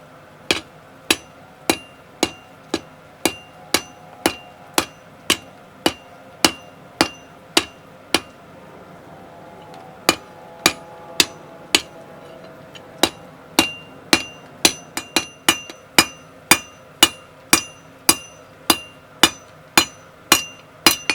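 Hand hammer blows on hot 15 mm round steel bar over an anvil, about two a second, each with a bright metallic ring, as the drawn-out section is hammered round. The blows stop for about two seconds near the middle, then resume and come a little faster.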